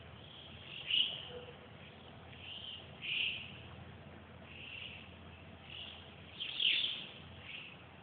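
A flock of Alpine choughs calling in flight: short, high, shrill calls every second or so, some sliding downward, the loudest about a second in and near seven seconds.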